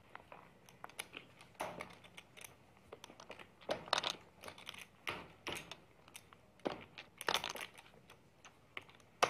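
Faint, irregular clicking and clattering of clay poker chips being handled at the table, in scattered short bursts.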